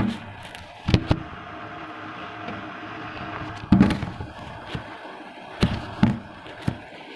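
Kitchen utensils knocking: about seven sharp knocks at irregular intervals, the loudest about halfway through, as freshly pounded spices are tipped from a mortar into a simmering pot of kadha. A steady hiss runs underneath.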